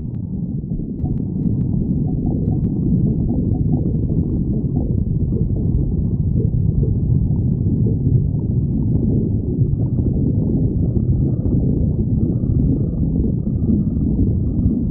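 Stomach growling: a continuous deep rumbling gurgle with no pauses.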